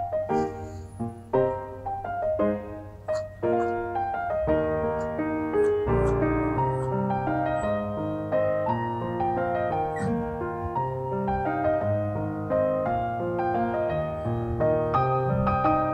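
Background piano music, gentle and slow: single notes at first, with fuller chords and a low bass part joining about six seconds in.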